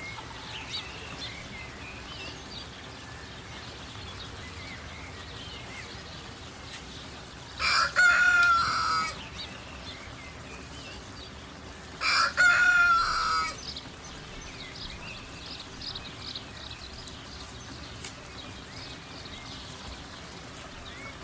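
A rooster crowing twice, about four seconds apart, each crow lasting about a second and a half.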